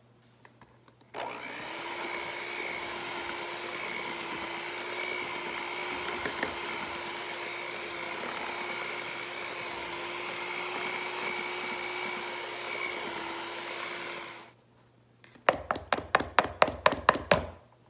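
Electric hand mixer running steadily with a hum, beating the last of the flour into pound cake batter; it starts about a second in and switches off after about thirteen seconds. A quick run of sharp knocks follows near the end.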